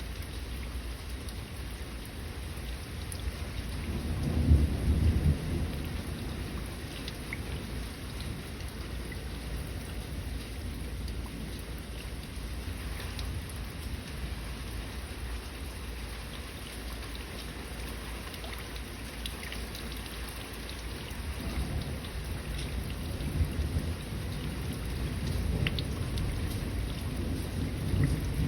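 Steady rain with faint scattered drop ticks, and thunder: a low rumble swells about four seconds in, and another longer rumble builds up near the end.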